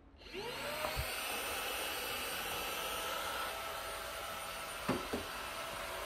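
Cuckoo PowerClone cordless stick vacuum switched on, its motor whine rising to speed, then running steadily as its brush nozzle dusts. There are a few light knocks, one about a second in and two close together near the end.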